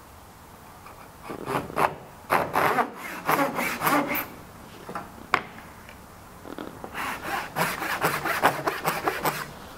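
Japanese pull saw cutting a small wooden practice piece: a run of rasping strokes starting about a second in, a pause broken by a single knock, then a quicker run of strokes near the end as the blade rides against a wooden jig for the 45-degree cut of a jaguchi joint.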